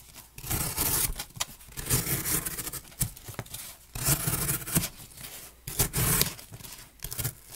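A Smith & Wesson SWAT folding knife's blade slicing through corrugated cardboard in about four rasping strokes, each about half a second long, with short clicks and rustles of the cardboard between cuts.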